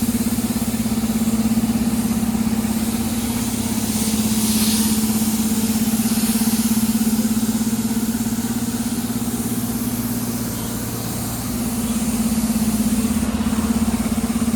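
A small engine-driven machine running steadily with a loud, fast-pulsing drone, dipping a little about ten seconds in and then picking up again.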